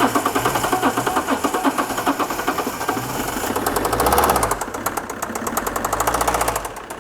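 Fiat Doblò's 1.9-litre Multijet diesel engine running just after a jump start, with a heavy, even rhythmic knock that swells briefly about four seconds in. It sounds like a bearing failure, a classic engine failure, which the mechanic puts down to oil starvation from oil thinned with diesel.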